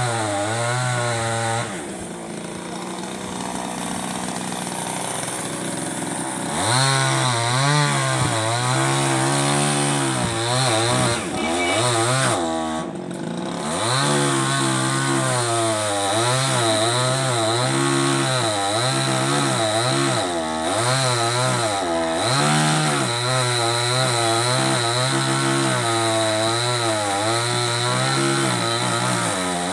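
Chainsaw cutting into the base of a tree trunk, its pitch repeatedly dipping under load and rising again as the chain bites. It runs lighter and quieter from about two seconds in, then cuts hard again about six seconds in.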